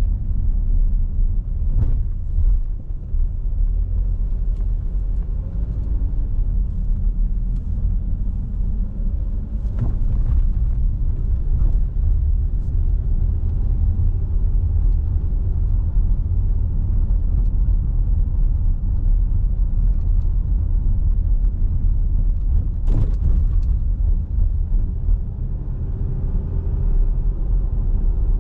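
Car driving, a steady low rumble of tyres and engine heard from inside the cabin, with the tyres running over a brick-paved street for part of the way. A few short knocks from bumps in the road, the strongest about 23 seconds in.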